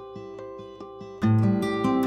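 Background music: a picked string pattern of about four notes a second, which about a second in breaks into fuller strumming over a bass line and gets much louder.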